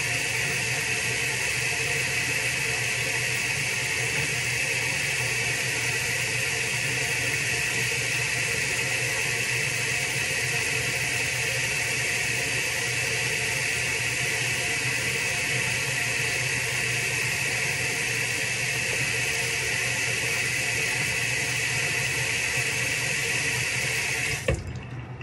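Handheld hair dryer running steadily, a loud hiss of blown air over a low motor hum, switched off suddenly near the end.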